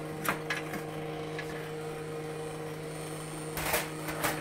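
Steady electrical hum from the running homebrew tube transmitter equipment, with a few knocks and scrapes as the metal control-box cover is handled, the loudest about three and a half seconds in.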